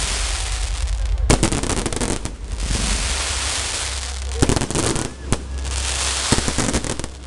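Fireworks going off: a dense, continuous crackle from glittering crackle-star shells, with several sharp bangs, about 1.3, 4.5, 5.3 and 6.4 seconds in.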